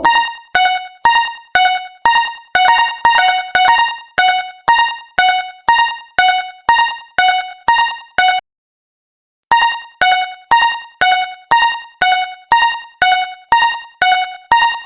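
Japanese railroad crossing alarm ringing: an electronic bell tone alternating between a higher and a lower note, about two dings a second, each dying away. It stops for about a second midway and then resumes.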